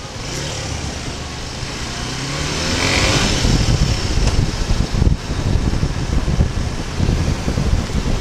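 Suzuki Gixxer SF 250's single-cylinder engine revving up as the motorcycle accelerates away, its pitch rising over the first few seconds. Wind noise then takes over, gusting on the microphone as speed builds.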